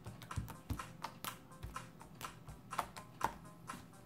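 Jiggly slime being squeezed and worked by hand, giving a quick, irregular run of small clicks and pops, several a second.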